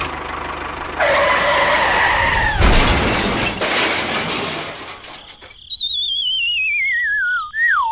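Added sound effects: a noisy crash about a second in, then a whistle tone that falls steadily and wavers up and down near the end.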